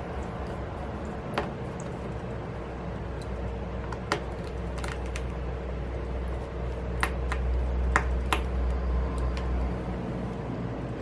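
Scattered light clicks and taps, about eight at irregular intervals, as small screws, tools and flex-cable parts of an iPad Pro are handled during the disconnection of its lower display flex cables, over a steady low hum.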